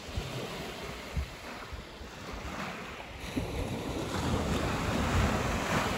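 Waves breaking on a shingle beach, with wind rumbling on the microphone; the surf swells louder about halfway through.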